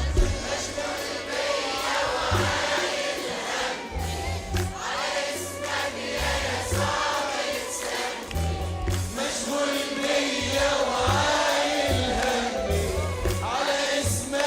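Christian worship song in Arabic: a choir of voices singing over instrumental backing with a steady bass line.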